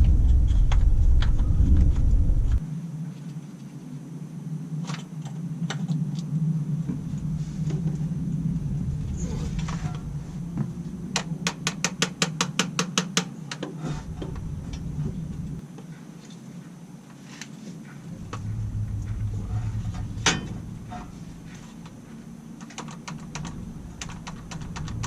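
Light clicks and rattles of small parts and hand tools being handled during transmission work, with a fast, even run of about six clicks a second around the middle and one sharper click later. A low rumble stops about two and a half seconds in.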